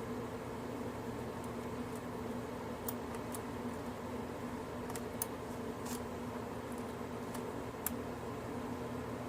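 A few faint, sharp clicks of a lock pick and tension tool working the pin stack of a WR six-pin padlock core, spaced irregularly, over a steady low hum.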